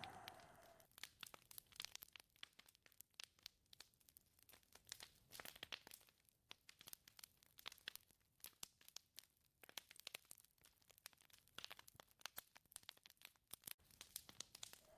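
A gust of wind dies away within the first second, leaving faint, irregular crackling and clicking until a new gust begins right at the end.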